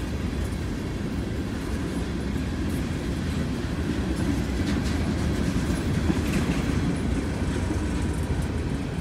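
Freight train cars rolling slowly past: a steady low rumble of steel wheels on the rails, with a few faint clicks from the wheels and couplers.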